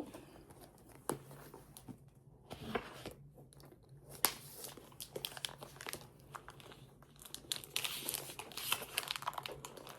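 Packaging being handled and picked at: scattered crinkling and small tearing sounds with light clicks, growing busier after about seven seconds.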